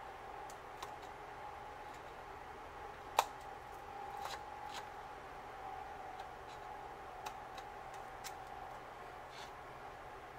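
Scissors snipping paper in scattered small cuts, the sharpest about three seconds in, over a faint steady hum.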